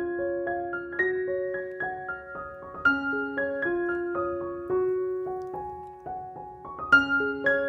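Background music: a gentle solo piano melody of single struck notes, each ringing and fading, about two to three notes a second.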